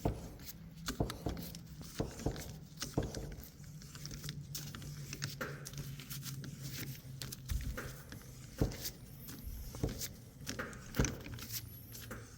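Hand-turned thread die cutting fresh threads on the stripped end of a car axle shaft, wet with cutting oil: irregular metal clicks and scrapes as the die is worked round.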